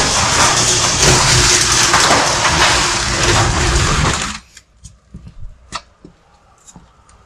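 Electric garage door opener running as the door rises, a steady mechanical rumble and rattle that cuts off suddenly a little past halfway as the door reaches the top. After that there are only a few faint clicks.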